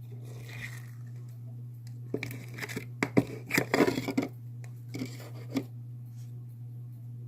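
Hands handling a plastic slime container and clear slime: bursts of crinkly crackling and clicks from about two seconds in, and again around five seconds, over a steady low hum.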